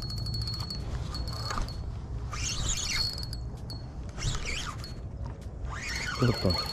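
Spinning reel cranked in short spells during a jig retrieve: a fine, rapid ticking over a steady high whine from the gears, with pauses between turns. Short squealing calls fall in the gaps, and there is a louder brief sound near the end.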